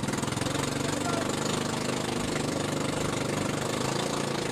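A small boat engine running steadily, its beat a fast, even pulse.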